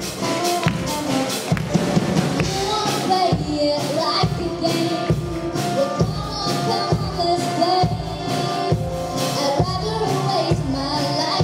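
Live rock band playing, with drum kit and amplified guitars, and a girl singing lead vocals into a microphone, her voice coming in a couple of seconds in.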